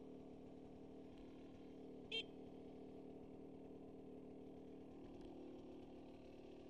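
An off-road vehicle's engine idling steadily and faintly, with one short high toot about two seconds in.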